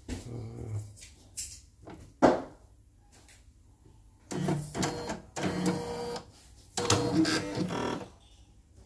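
YOKO portable embroidery machine stitching in two short runs of about two seconds each with a brief stop between, after a few sharp knocks, the loudest about two seconds in. The machine has a fault that keeps throwing it from embroidery mode back to sewing mode, which the technician puts down to a dirty lower-thread sensor.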